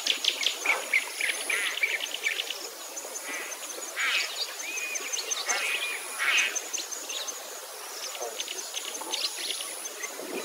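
Several songbirds chirping and calling over one another in many short, quick notes, with a thin, steady, high whine behind them.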